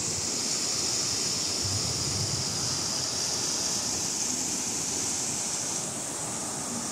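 Steady rushing of a swollen, muddy river in flood, its fast turbulent water churning, with an even hiss.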